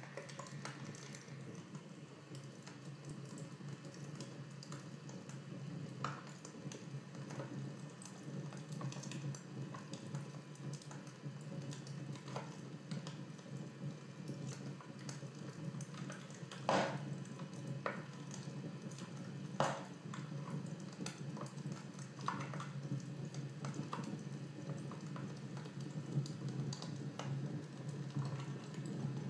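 A fire crackling, with irregular sharp pops over a steady low rush and a couple of louder pops past the middle.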